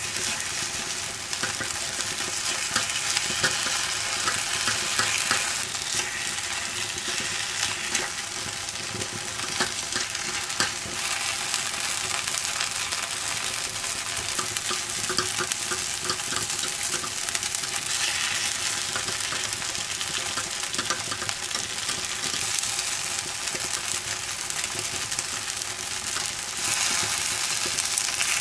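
Takoyaki batter sizzling and crackling in the oiled wells of a takoyaki pan as the balls are turned over, with small clicks and scrapes of the metal turning picks against the pan.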